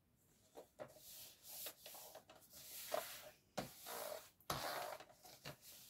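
Paper card stock rustling and sliding as it is handled and pressed flat against a scoring board by hand, with a few light knocks.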